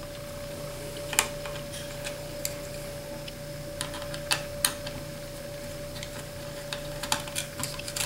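Small Phillips screwdriver turning out tiny screws on a netbook's metal memory cover plate: scattered light clicks and ticks of metal on metal, a few seconds apart, over a faint steady hum.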